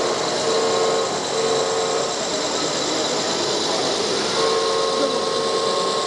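Mechanical whine of a radio-controlled construction model, starting and stopping in short spells as it is worked, over a steady background of many voices.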